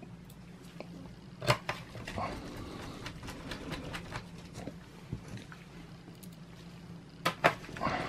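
Small clicks and taps of a mini Phillips screwdriver and gloved hands working a screw into a laptop's plastic bottom cover, over a faint low hum. Sharper clicks come about a second and a half in and again twice near the end.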